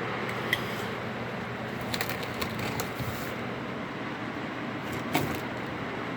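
Cardboard shipping box being handled: scattered crackles and a few light knocks over a steady background hiss.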